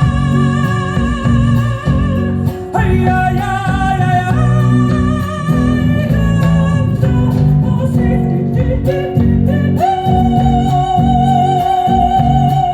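Live band music: a voice singing long, held notes with vibrato over guitar accompaniment and a steady rhythmic low end. The held note changes pitch about three seconds in and again near ten seconds.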